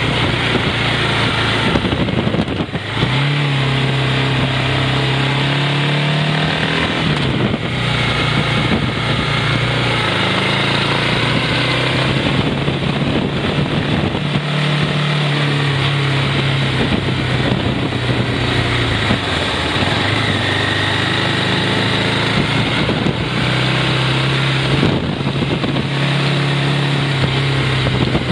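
BMW F650GS motorcycle engine running steadily while riding, its note dipping and picking up again a few times, over constant wind and road noise.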